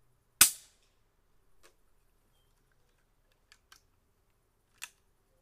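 Single shot from a Taipan PCP air rifle with a .25 calibre standard barrel at about 55 foot-pounds, heard from about 15 feet: one short, sharp report about half a second in that dies away quickly. A few faint clicks follow as the rifle is handled.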